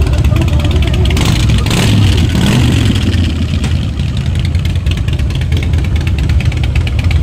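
Harley-Davidson V-twin motorcycle engine idling with a steady, loping exhaust beat, revved up briefly about a second in and settling back to idle.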